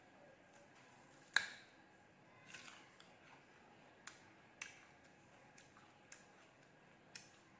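Biting into a crisp, crunchy green fruit close to the microphone: one loud crunch about a second and a half in, then a series of smaller crunches as it is chewed.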